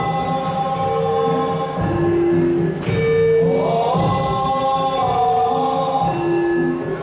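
Sundanese dogdog ensemble music: several voices singing held notes together, sliding between pitches, over a repeating drum pattern.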